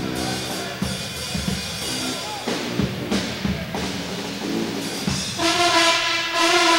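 College pep band playing in the stands: a drum beat of bass and snare under clarinets and horns. About five seconds in, the full band comes in loud on a held brass-and-woodwind chord.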